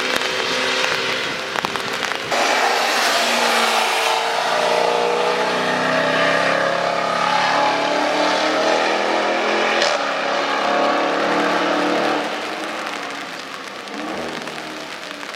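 A car driving past at speed on a wet race track: its engine note bends in pitch as it goes by, over a steady hiss of tyre spray and rain. The sound jumps louder about two seconds in and fades somewhat after about twelve seconds.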